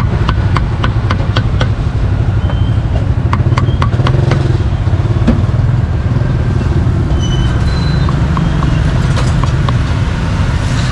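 A cleaver chopping grilled braised pork on a chopping board: quick knocks about three a second for the first four seconds, then fewer, lighter taps. Under them runs a steady low rumble of street traffic.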